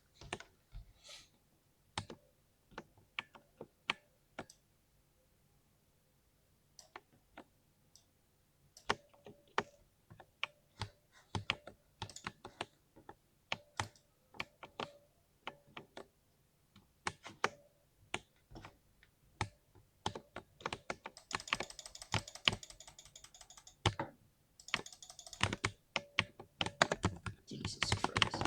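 Typing on a 60% mechanical keyboard: separate key clicks, scattered at first, then coming faster and denser, with quick runs of rapid keystrokes about three-quarters of the way in and again near the end.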